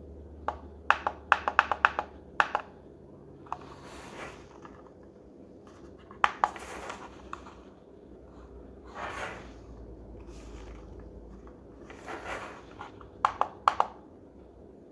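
Buttons on a La Crosse Technology alarm clock clicking as they are pressed to set the alarm and snooze duration. A quick run of about six clicks comes in the first two seconds, then a few single clicks, and three more close together near the end, with soft rustles of handling in between.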